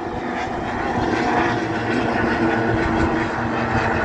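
Racing outboard motors on several small race boats running flat out, a steady engine whine.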